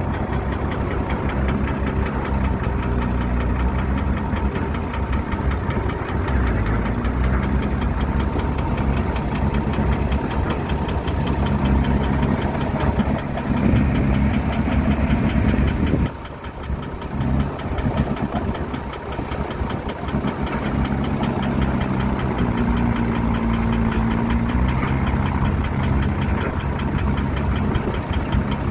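Engine of a heavy construction machine running steadily, dipping briefly about sixteen seconds in and then carrying on.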